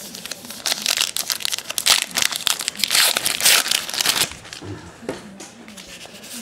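A trading-card pack wrapper being torn open and crinkled, a dense crackling for about four seconds, then quieter handling of the cards.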